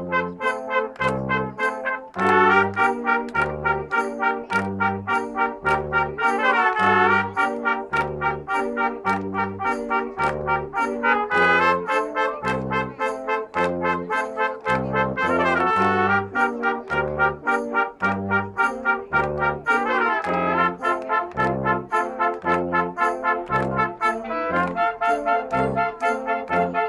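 Concert band music led by brass (trumpets and tuba with woodwinds) playing a march-like tune, with a steady beat and regular bass notes from the low brass under the melody. The full band comes in louder about two seconds in.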